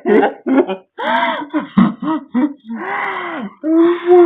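A person laughing hard, wheezing and gasping in short, broken bursts.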